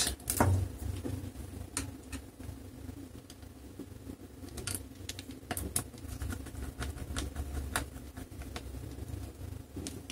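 Small screwdriver turning screws into a laptop's base panel: scattered faint clicks and scrapes of the tip on the screws and the plastic case, over a steady low background hum.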